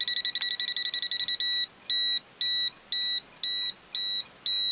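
FNIRSI TP10 non-contact voltage tester beeping at a high pitch, signalling live voltage on the mains cable it is held against. The beeps come in fast succession for about the first second and a half, then slow to about two a second.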